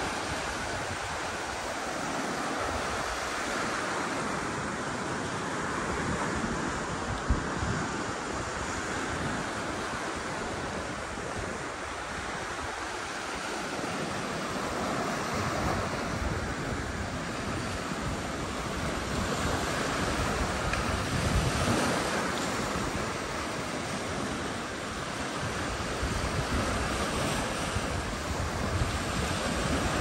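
Sea waves washing onto the shore, the surf swelling and easing every few seconds, with wind buffeting the microphone. A single short click about seven seconds in.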